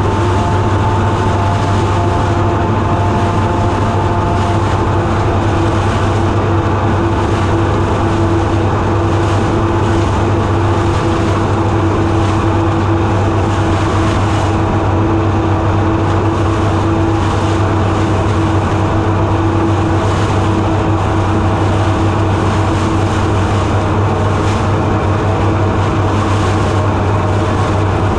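Massey Ferguson 31 combine harvester running under load while cutting oats: a steady, even machine drone, low and heavy, with a few held tones above it that hardly change.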